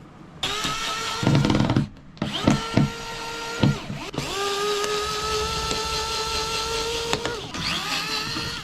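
Power drill-driver backing out the screws that hold a ceiling light, running in four bursts. Its motor whine spins up and winds down each time, with a few knocks in between, and the longest run lasts about three seconds.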